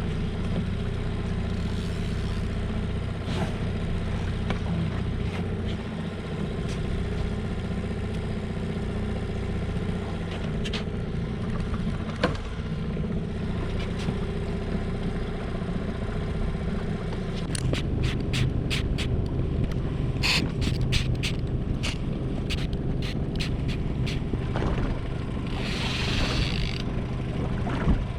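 Boat engine running steadily at trolling speed, its note shifting about two-thirds of the way through. A run of sharp clicks follows, then a brief hiss near the end.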